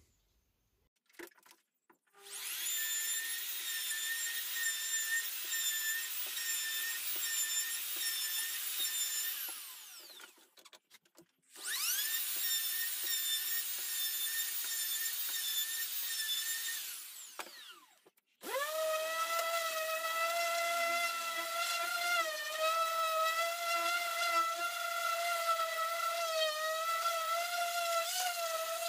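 Handheld electric wood router run twice, each time spinning up to a high steady whine and winding down after several seconds. Then a random orbital sander starts and runs on with a lower hum that wavers slightly as it works the wood.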